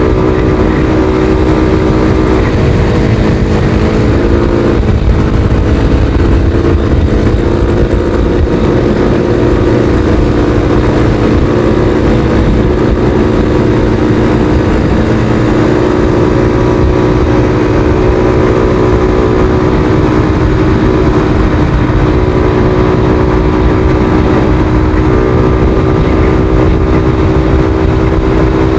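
Suzuki Thunder 125 single-cylinder motorcycle engine running on the move, under a steady heavy wind rumble on the microphone. The engine note shifts briefly about four seconds in, then holds steady.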